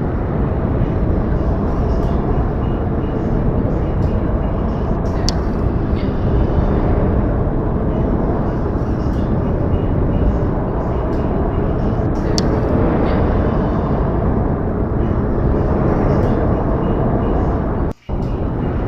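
Steady, dense outdoor rumble of wind in a snowy field recording, heaviest in the low end, with a few faint small ticks above it. It breaks off for a moment near the end.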